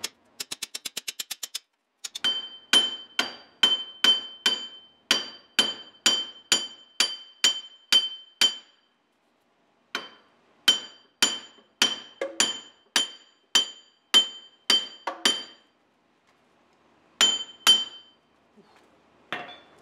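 Hammer blows on steel, ringing sharply, about two a second in two long runs, then two more near the end: a seized front wheel hub bearing on a 2006 Jeep Commander being driven out of its steering knuckle.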